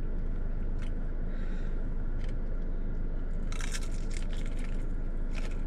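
Someone chewing a crunchy breaded boneless chicken wing coated in Parmesan cheese crumbles: scattered crisp crunches, thickest a little past halfway, over a steady low hum.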